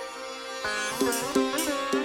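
Background music: a plucked string instrument playing bending notes over a held drone, with plucked notes coming every half second or so from about half a second in.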